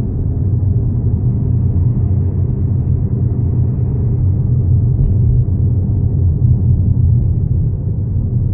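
Steady low rumble of a defective wheel bearing on an Audi A6 4G TDI quattro on the move.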